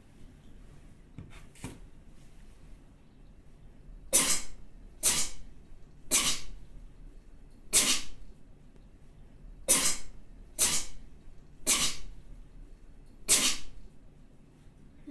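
A person sneezing eight times in a row, wet spraying sneezes about a second or two apart.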